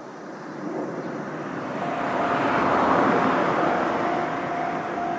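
A road vehicle passing close by: tyre and engine noise swells to its loudest about three seconds in, then eases off. A thin, steady high tone joins a little under two seconds in.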